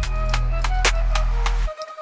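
Background electronic music with a drum beat and a deep bass. The bass and drums drop out near the end, leaving a light melody.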